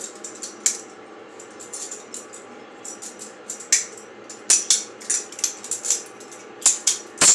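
Butterfly knife (balisong) being flipped: its metal handles click and rattle against each other and the blade in quick, irregular strokes, with the sharpest clacks near the end.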